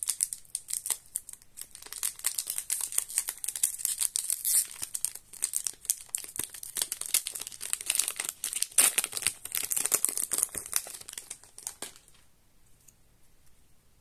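Foil-lined Magic: The Gathering booster pack wrapper crinkling as it is torn open and pulled apart: a dense run of crackles that stops near the end.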